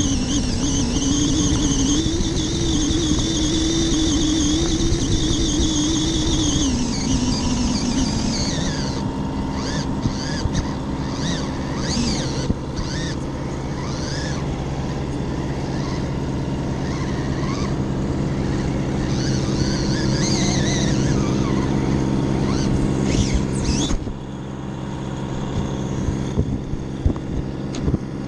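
Electric motor and gears of a radio-controlled rock crawler whining as it drives, wavering in pitch and then dropping away about seven seconds in. After that, short bursts of whine and clicks as it crawls over gravel and mud, over a steady low hum.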